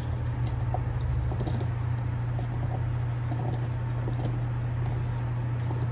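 Steady low hum under a few faint soft taps as blueberries are spooned off a plate into thick pancake batter in a blender jug.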